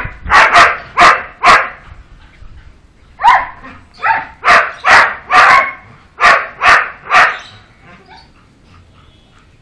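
Pitbull puppy barking: short, high yappy barks in two quick bouts, about a dozen in all, stopping about eight seconds in.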